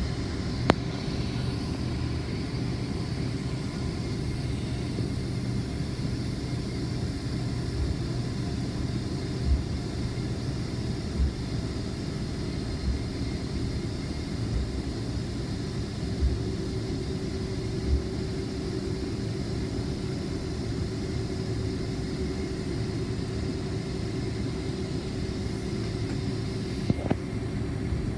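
Cabin noise inside a Boeing 767-400ER as it taxis: the engines run at idle with a steady hum. A short low thump comes every second or two through the middle stretch.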